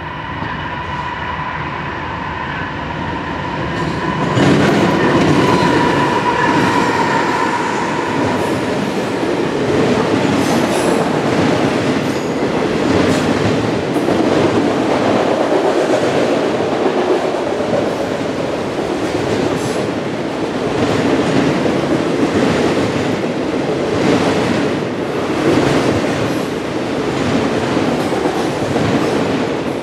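Freight train passing: a steady whine at first, then from about four seconds in the louder rumble and clatter of the freight cars rolling by, wheels clicking over the rail joints.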